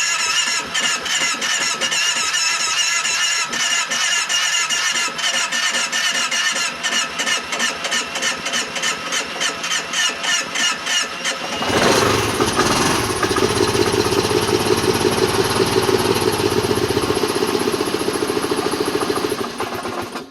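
2010 Kawasaki Teryx 750's V-twin engine cranking on the starter in regular pulses for about twelve seconds with a little throttle given. It then catches and runs on the throttle, and cuts out near the end. A cold hard start: it won't start or run without throttle, which has been put down to possibly the valves.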